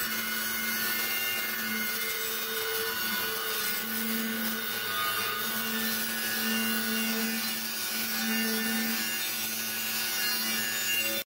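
Arc welding a steel end plate onto a pipe: a steady hiss with a faint wavering hum underneath, cutting off abruptly at the end.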